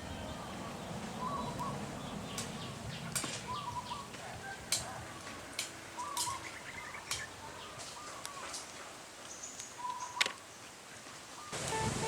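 Birds chirping in short repeated calls over a steady outdoor background, with a few sharp clicks now and then.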